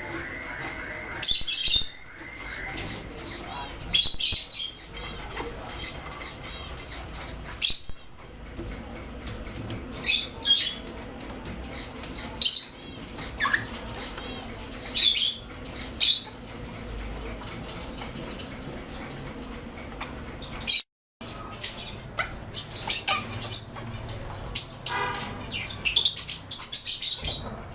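African grey parrots giving short, sharp, high-pitched squawks and chirps every few seconds. It opens with a held whistle and ends with a quick run of calls.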